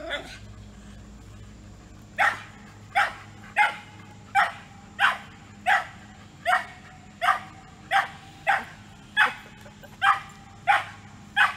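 A dog barking over and over at an even pace, about one bark every three-quarters of a second, starting about two seconds in.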